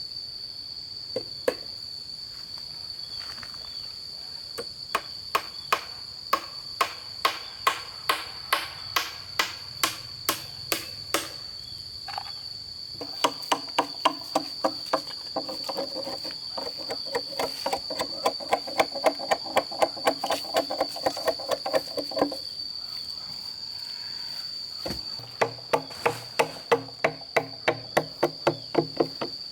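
Runs of steady, evenly paced blows on bamboo, about two or three a second, stopping briefly twice. In the middle run the bamboo rings with a pitched tone at each blow. A steady high-pitched insect drone runs underneath.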